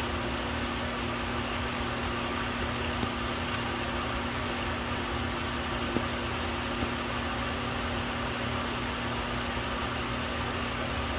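Steady mechanical hum with a low drone and hiss, like a running fan, with a few faint clicks about three, six and seven seconds in.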